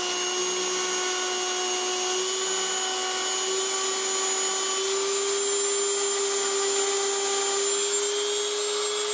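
Dremel rotary tool running steadily at high speed, polishing the top of a small stainless-steel revolver part. Its whine holds steady, creeping up slightly in pitch.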